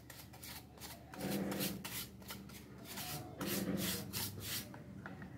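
Small hand file scraping back and forth along the edge of a thin plywood cutout, smoothing it. A quick run of rasping strokes that gets louder for two stretches, about a second in and again past three seconds.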